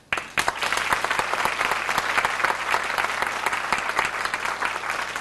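Audience applauding, starting abruptly and keeping up a steady patter of many hands clapping.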